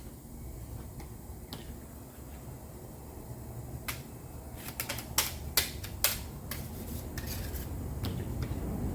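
A few sharp metallic clinks and clicks, as of hand tools or small metal objects being handled, clustered about four to six seconds in, over a steady low hum.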